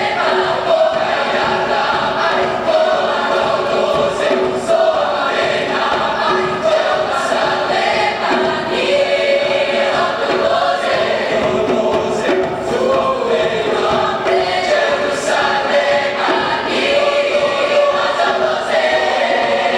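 A choir singing, several voices together, with notes held for a second or two at a time.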